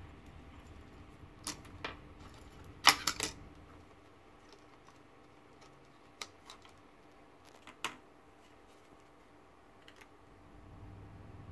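Sharp handling clicks and taps, the loudest a quick cluster of three about three seconds in, as a USB flash drive is pulled from a TV board's USB port and laid on the desk; a few lighter taps follow as a remote control is picked up.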